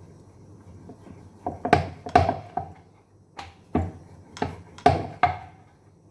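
A rolling pin and rolling board knocking as dough is rolled out into a thin disc: a run of sharp clacks, about two a second, starting about a second and a half in.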